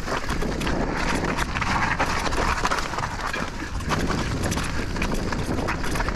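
Electric mountain bike (Specialized Turbo Levo Alloy) clattering over rough rocky trail: tyres crunching over rock and the bike rattling in a continuous stream of quick knocks and clicks.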